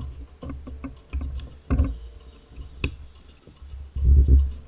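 Handling noise from a camera fixed to a child's tricycle while hands fasten a toddler's seat harness: irregular low thumps and rumbling, loudest near the end, with scattered small clicks and one sharp click about three seconds in.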